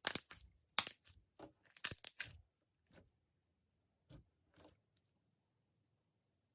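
Knife cutting through a bar of soap, a quick run of crisp, crunchy cuts followed by a few scattered ones that stop about five seconds in.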